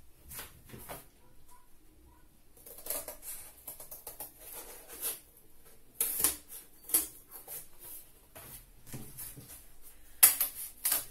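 Scissors snipping through a sheet of cardboard in irregular cuts, with the cardboard rustling as it is handled. The sharpest snips come about six and seven seconds in and again near the end.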